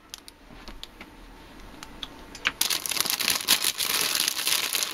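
Clear plastic bag of small metal mounting parts crinkling as it is handled. Quiet for the first couple of seconds apart from a few light clicks, then loud, continuous crinkling from about halfway through.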